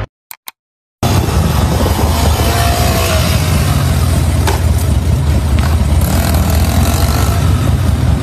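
Two short clicks, then about a second of silence, then a motorcycle engine running loud and steady.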